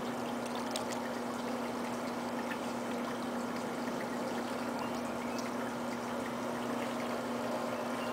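Potter's wheel turning with a steady low hum while wet hands work the spinning earthenware clay, giving a continuous watery swishing.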